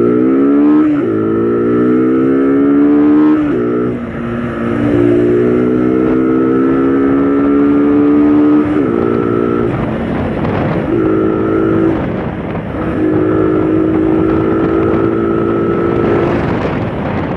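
Motorcycle engine accelerating up through the gears, its pitch climbing and dropping back at two gear changes in the first few seconds, then running at a steady cruise that eases off and picks up again several times.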